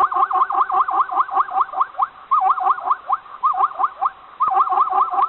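A small animal squeaking over and over, quick rising squeaks at about four or five a second, with a brief lull midway before the run picks up again.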